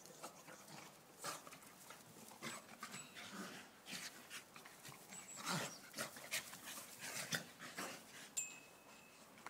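Two Staffordshire bull terriers play-wrestling: fast panting breaths and scuffles in short, irregular bursts, busiest a little past the middle.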